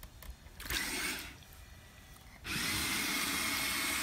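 Electric motors of a Kid Galaxy Morphibians amphibious RC car whirring as its paddle wheels churn through pool water. A brief burst about a second in, then steady running with a high whine from about halfway.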